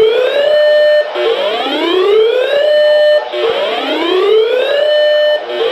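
Electronic whoop alarm tone: a pitched sweep that climbs, holds steady briefly, then cuts off and starts again, about every two seconds.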